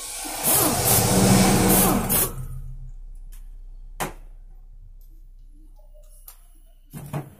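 Handheld electric driver whirring for about two seconds as it runs in the clutch-cover bolts of a Bajaj Discover 100 engine, then fading away slowly. A single sharp click about four seconds in.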